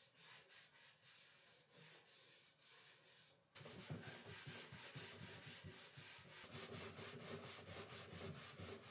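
Microfiber cloth buffing wax off a wooden desk leg: faint rhythmic rubbing strokes, with a short break about halfway before a quicker run of strokes.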